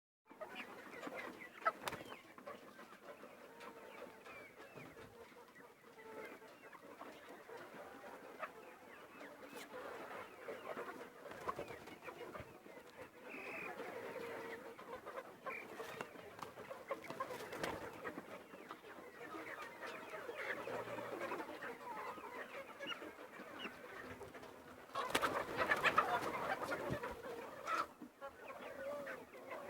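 A flock of chickens clucking and chattering together, continuous and dense, with a louder, noisier flurry a few seconds before the end.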